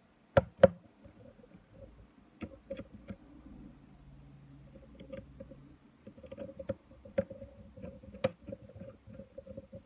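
Small precision screwdriver turning tiny screws into a Nikon 18-55mm lens mount: faint scratchy clicks and rubbing of metal on plastic. Two sharp clicks come about half a second in as the lens is handled.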